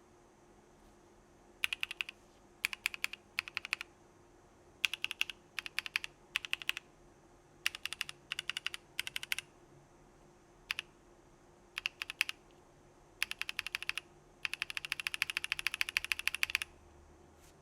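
Mechanical keyboard typing: WS Morandi linear switches (UPE stem, POM housing) in a Geonworks Frog with an aluminum plate, clacking in short bursts of a few keystrokes each. There is a single lone key press about two-thirds through, and a longer fast run of keystrokes near the end.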